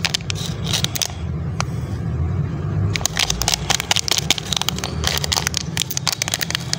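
Plastic candy packet crinkling and crackling as it is squeezed and turned in the hands, in clusters of sharp crackles that are densest from about three seconds in. A steady low hum runs underneath.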